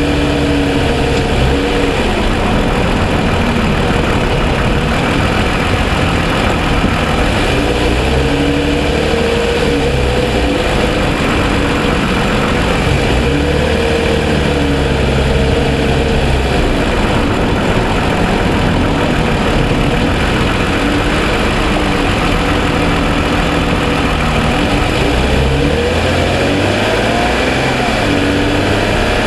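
2007 Toyota Sienna's 3.5 L V6 running, its pitch drifting up and down and rising near the end. The owner is documenting a ticking noise from this engine that the dealer put down to piston slap.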